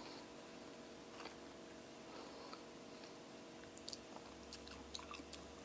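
Faint chewing of ripe papaya, with a few soft clicks of a metal spoon scooping the fruit's flesh.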